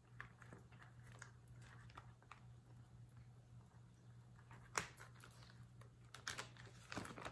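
Faint clicks and rustles of hands twisting a silicone ice cube tray and popping frozen basil cubes out into a plastic freezer bag, with a sharper tick about two thirds of the way through and a few more near the end.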